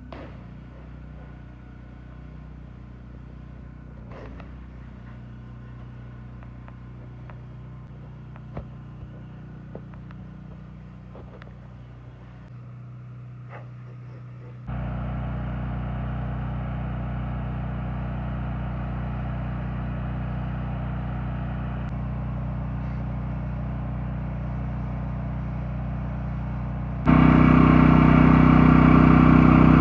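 Honda GX390 engine of a 4000 PSI pressure washer running steadily at constant speed. It is faint at first with a few scattered clicks, then jumps abruptly louder about halfway and much louder again near the end.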